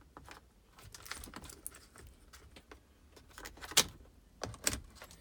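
Scattered sharp clicks and knocks from the heater and AC controls of a 2004 Ford E250 van as they are switched, the loudest about four seconds in. No blower fan is heard running: the blower motor is not working.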